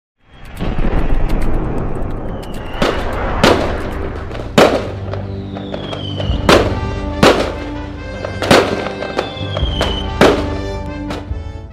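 Intro sound effects over music: a swelling rush of noise, then a series of sharp bangs like fireworks going off, with three falling whistles between them, over a sustained musical chord. It fades out near the end.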